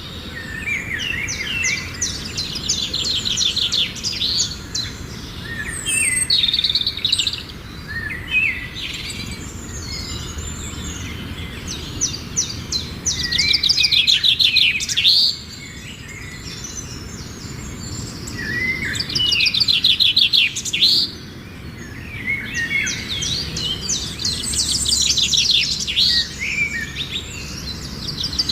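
Songbirds singing: a fast trilled phrase of rapid high notes repeats every few seconds, with other chirps in between.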